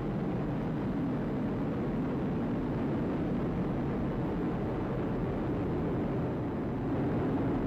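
Atlas V rocket's RD-180 first-stage engine and two solid rocket boosters firing in ascent, heard as a steady, rumbling wash of noise that grows slightly louder near the end.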